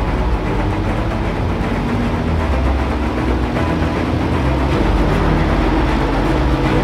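A heavy vehicle's engine running with a steady low rumble.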